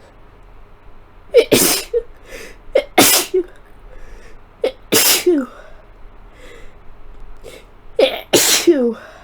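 A person with a head cold sneezing four times in a fit, each sneeze a sharp catch of breath and then a loud, messy burst. The first three come about a second and a half apart, and the last follows after a longer pause.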